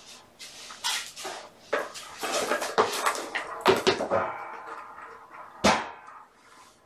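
Kittens playing with a plastic ball-in-track tower toy: irregular plastic clattering and knocks as they bat at it, busiest in the first half, with one sharp knock about two-thirds of the way through.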